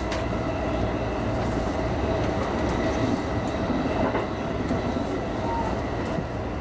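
Electric commuter train running along the line, heard from the front of the train: a steady rumble of wheels on rail with a steady hum and a few light clicks.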